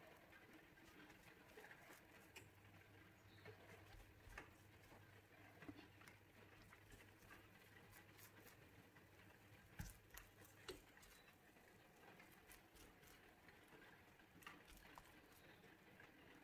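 Near silence, with scattered faint light ticks and dabs from a silicone brush spreading batter across a nonstick frying pan, and a faint low hum for several seconds in the middle.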